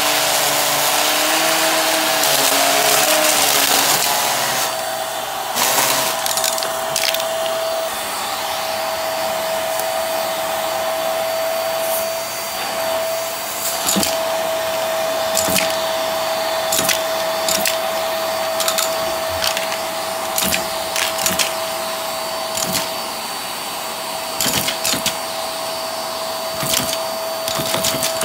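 Hart cordless stick vacuum running, its sound shifting about four seconds in, then holding a steady whine. Small round pieces click and rattle up the bare wand as they are sucked in, giving many short sharp clicks throughout.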